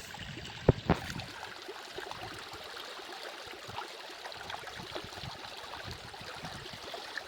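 Running water trickling and gurgling steadily, as from a small stream, with two sharp knocks about a second in.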